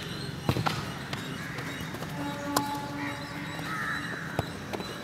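Sharp thuds of footballs being kicked on a dirt pitch: two close together about half a second in, another about two and a half seconds in, and a lighter one near the end. A horn-like tone sounds for about a second in the middle, with birds chirping in the background.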